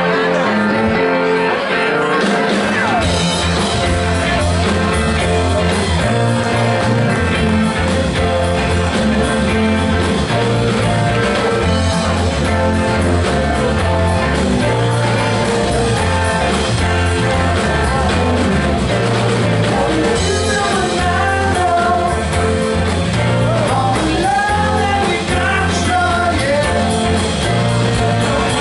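Live rock band playing: electric guitars, bass guitar, keyboards and two drum kits. Bass and drums fill in about two seconds in, and a man's singing voice comes in over the band in the last third.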